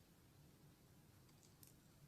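Near silence: room tone, with a few faint, brief clicks about one and a half seconds in.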